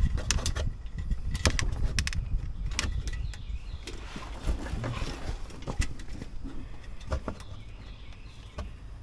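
Scattered light clicks and taps of parts being handled while wiring is fitted, over a low rumble, with faint bird chirps.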